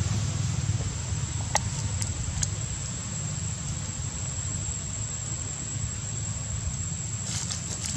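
Steady outdoor background: a low rumble under a thin, constant high whine, with a few faint clicks about one and a half to two and a half seconds in.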